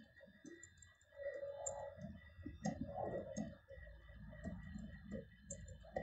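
Typing on a computer keyboard: a faint, irregular run of keystroke clicks, over a faint steady high-pitched whine.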